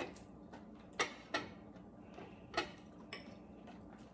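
Metal spoon clinking and scraping in a ceramic bowl: a few separate sharp clicks, the loudest about a second in and again about two and a half seconds in, with fainter ticks between.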